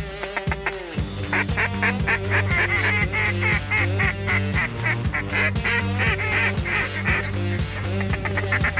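Background music with a steady beat; a deep bass line comes in about a second in.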